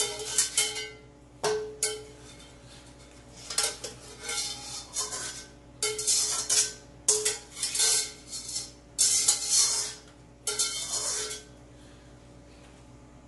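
Spatula scraping and knocking against a wok as fried food is emptied into a bowl: a run of irregular scrapes, some followed by a short metallic ring, that stops near the end.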